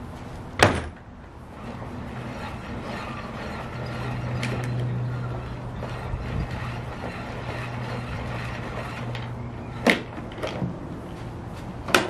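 Three sharp knocks, about half a second in, near ten seconds and at the very end, over a steady low hum.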